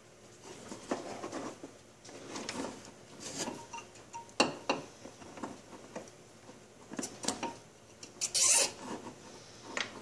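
Scattered plastic clicks, knocks and rubbing from a scooter's CDI box and its wiring harness being handled and pushed onto a plastic mounting tab, with a brief scraping rustle about eight seconds in.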